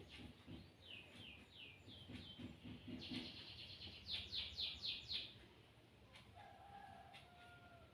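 A small bird chirping faintly: a few short falling chirps, then a quick run of five sharp chirps about four seconds in, followed by a longer, lower steady note.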